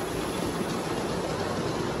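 Large-scale garden model train running along its track: a steady rushing noise with no breaks.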